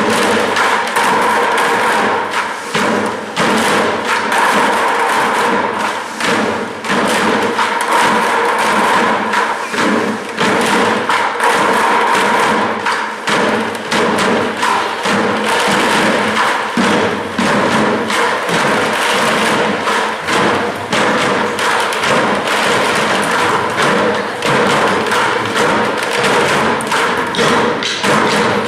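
Music with rapid, continuous percussive thumping and knocking over a held tone.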